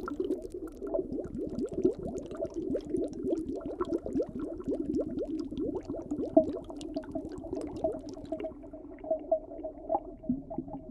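Underwater bubbling: a dense stream of small bubbles gurgling, thinning out somewhat near the end.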